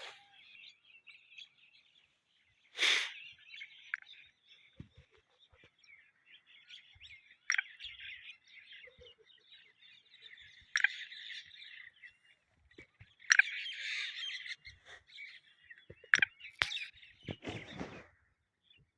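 Black francolin calling: near-continuous chirping, broken by short, loud sharp notes every few seconds and a harsher burst near the end.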